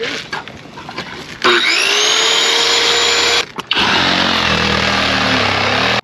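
A few light knocks and scrapes, then a cordless circular saw spins up with a rising whine and cuts through the roof covering. It stops briefly after about two seconds, then starts again and cuts steadily.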